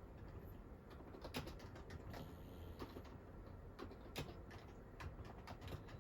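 Pug snoring faintly, a low steady breathing rumble, with a few scattered sharp clicks over it.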